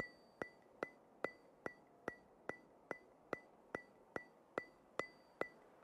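Steady clock-like ticking, about two and a half ticks a second, each a sharp click with a brief high ring.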